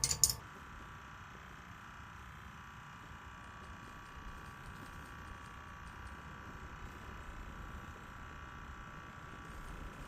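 A brief sharp clatter right at the start, then a faint steady hum with a thin high whine.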